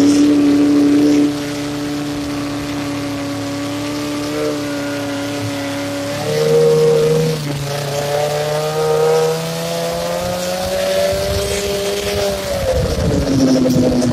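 Snowmobile engine running under throttle while riding. Its pitch jumps up at the start and holds steady, dips about six seconds in, climbs gradually, and then falls away near the end.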